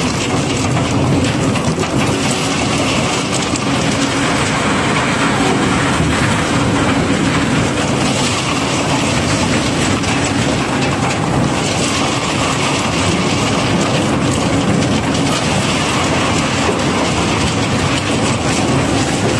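A continuous stream of cobblestones pouring and rattling as they are unloaded, a dense unbroken clatter of many stones knocking together.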